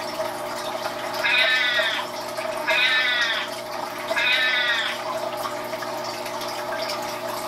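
Three cat meows, each a little under a second long and about a second and a half apart, over a steady low hum.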